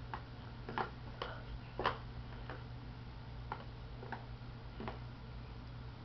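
About eight light, irregular clicks and taps of a plastic toy rattle as a baby handles it and knocks it on a plastic baby-walker tray, over a faint steady hum.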